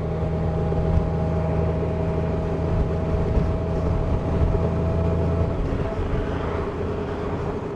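Honda Goldwing motorcycle running on the road, a steady engine hum with road and wind noise. The pitch of the engine changes about three-quarters of the way through.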